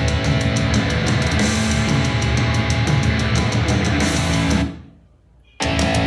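Heavy rock music with distorted guitar, bass and drums, played back through a portable speaker for a sound test. It fades out briefly about three-quarters of the way in, then starts again abruptly, as in a switch from one speaker to the other.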